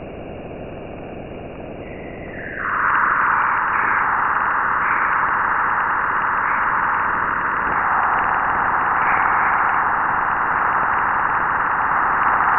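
Space recording played back as sound, one of the NASA 'planet sounds': a steady rushing hiss that swells louder about two and a half seconds in and then holds with slight waverings.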